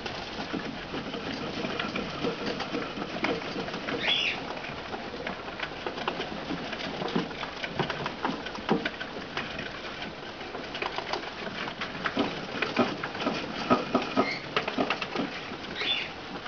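Small pet rodents chewing, a dense, irregular run of fast crackly clicks. A short high chirp comes in about four seconds in and again near the end.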